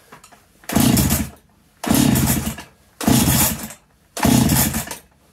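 Husqvarna 365 Special chainsaw being cranked by its pull-start cord four times, about once a second, with the spark plug out and a compression gauge in the plug hole, so the engine turns over without firing. This is a compression test; the gauge sits at about 130 psi, which the owner takes as on the low side, a sign of worn rings.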